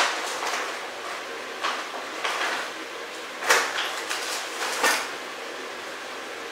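A utensil scraping and clattering in a food container, about seven short scrapes in the first five seconds, the loudest about three and a half seconds in. Then only a steady low hiss.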